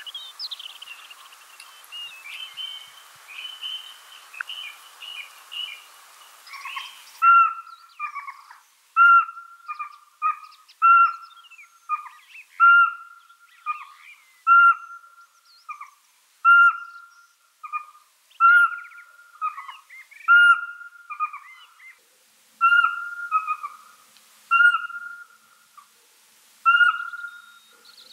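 Pygmy owl song: a regular series of single clear whistled hoots on one pitch, about one every two seconds, starting about seven seconds in. Before that there are fainter high chirping trills over a hiss.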